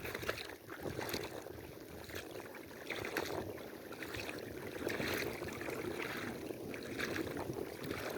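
Water splashing and trickling, with many small splashes and clicks scattered throughout.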